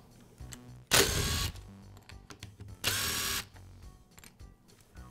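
Cordless driver spinning out screws from the plastic rear handle housing of a Makita polisher, in two short bursts of about half a second each, one about a second in and one about three seconds in.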